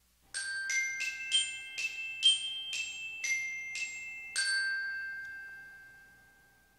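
Short outro jingle of about ten bell-like mallet notes, glockenspiel-like, picking out a quick melody; the last note rings on and slowly fades out.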